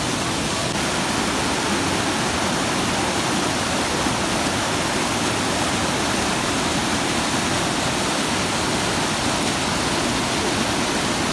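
Whitewater rushing steadily down a rocky cascade, a constant unbroken hiss of falling water.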